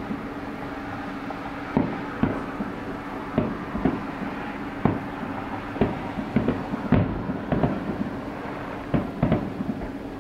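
Fireworks shells bursting: irregular sharp bangs and cracks, sometimes several in quick succession, over a steady hum.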